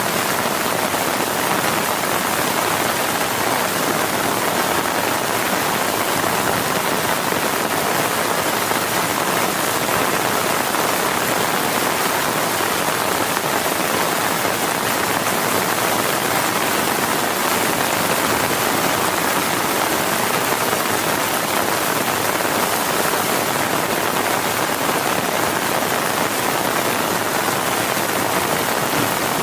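Heavy rain falling steadily, a dense even hiss with no thunder claps or other events.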